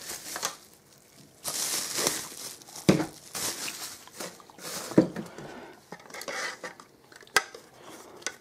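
Packaging crinkling and rustling in several bursts as an LED lantern is unwrapped and handled, with a few sharp knocks of the lantern being handled.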